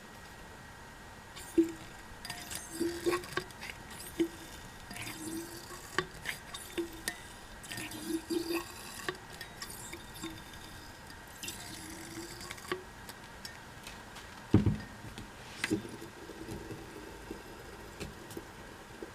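A new KYB New SR Special shock absorber being worked in and out, its oil making a short squelching, swishing 'jubo jubo' sound on each stroke, about one a second, with light clicks and one dull thump about two-thirds of the way through. The sound is said to be the damper's normal operating noise, not a sign of a leaking or worn-out shock.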